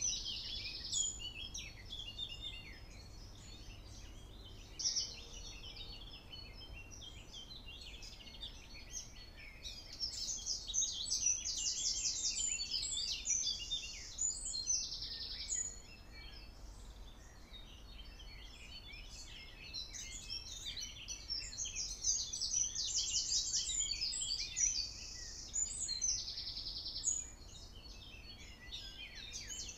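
Birdsong: a steady stream of high chirps and twitters, with a louder, longer trilled song phrase about ten seconds in and again about twenty seconds in.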